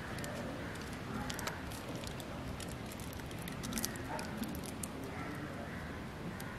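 Aluminium foil crinkling faintly as it is rolled tightly around a matchstick, a few scattered soft crackles over a steady background hiss.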